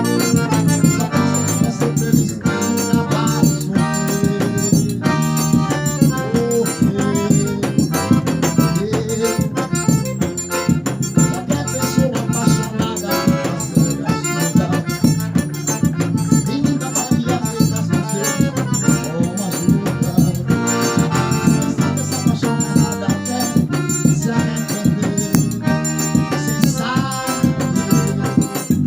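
Forró music playing: a band of pitched instruments over a fast, steady rattling percussion beat.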